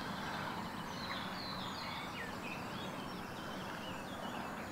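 Small birds singing, a run of short chirps and quick warbling notes, over a steady background hiss.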